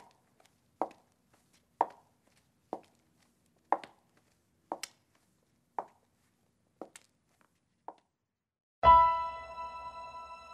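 A woman's shoes clicking on pavement, about one step a second, growing fainter as she walks away. About nine seconds in, music starts with a loud, sustained piano chord.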